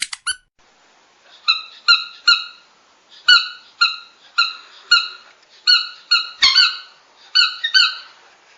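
Squeaky dog toy squeezed over and over: a few quick squeaks at the start, a short pause, then about fifteen short, high squeaks at an uneven pace, some in quick pairs.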